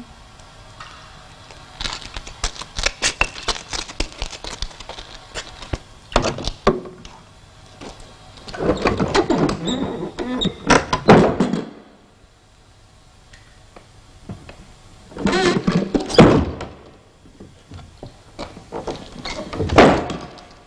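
Bursts of wooden knocking, clattering and thuds, the loudest of them as a heavy wooden bin lid is lifted. There are several separate bouts with quiet between them.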